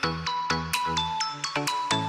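Background music only: a melody of short, plucked-sounding notes, several a second, over a bass line.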